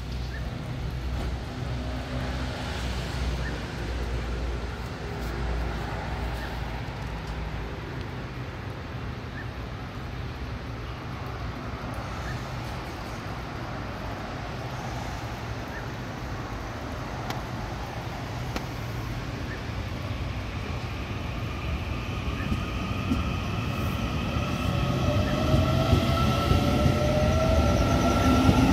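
Taiwan Railway EMU800-series electric commuter train (EMU819/820) standing with a steady low hum, then starting to pull away about twenty seconds in. Its motor whine rises in pitch and grows louder as it accelerates.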